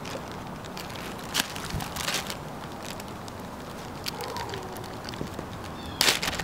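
Clear plastic bag crinkling in the hands as it is handled and opened: scattered crackles, with a louder burst of crinkling near the end.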